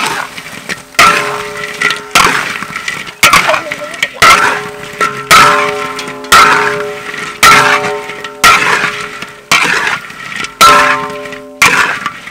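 A spatula strikes and scrapes a large wok about once a second, about a dozen strokes in all, as chicken pieces in chili sauce are stir-fried. Each stroke is a sharp clang, and the wok rings on briefly at several pitches after it.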